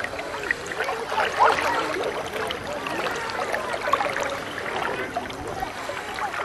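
Small waves lapping and splashing close to the microphone on a choppy lake, a continuous irregular watery churn.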